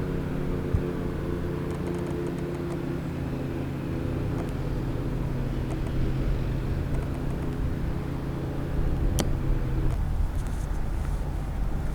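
Light aircraft's piston engine running with a steady droning hum. The hum drops away about ten seconds in, leaving a low rumble, with a single sharp click shortly before.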